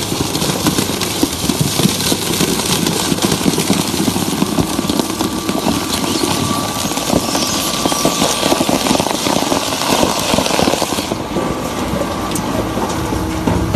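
Industrial shredder running, its toothed cutter discs tearing and crunching through stuffed plush toys in a dense, continuous grind of small crunches. The high, hissy part of the noise drops away about eleven seconds in.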